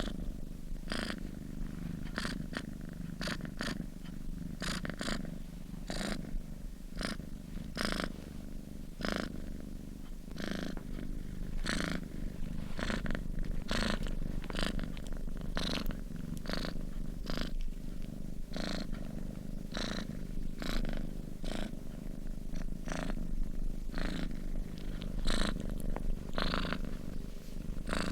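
Sleeping domestic cat purring steadily, a continuous low rumble with short airy breath sounds about once a second.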